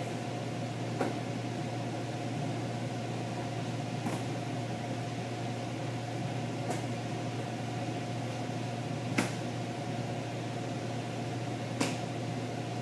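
Steady low electrical or mechanical hum of room equipment, with five short sharp clicks at roughly even spacing, about every two and a half to three seconds.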